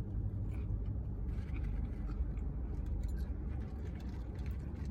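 Faint chewing and small clicks of someone eating, over a steady low rumble.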